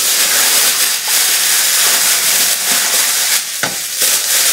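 Steady loud hiss, with a faint click or two about three and a half seconds in.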